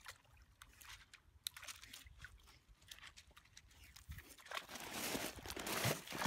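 Dog wading in a shallow pond: faint small splashes and ticks at first, then louder splashing from about four and a half seconds in as it lunges forward into deeper water.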